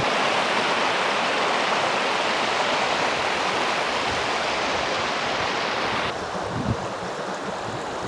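Rushing water of a fast-flowing stream in full spate, a steady hiss that drops abruptly to a softer rush about six seconds in.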